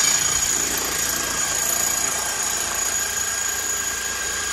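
Electric jackhammer running steadily as it chisels into the dirt: a dense, rapid hammering noise with a steady high whine on top.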